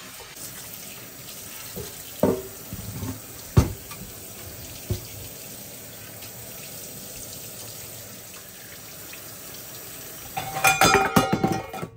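Kitchen tap running steadily into a sink as a chopping board is rinsed, with a few knocks against the sink. Near the end comes a burst of clattering with ringing clinks.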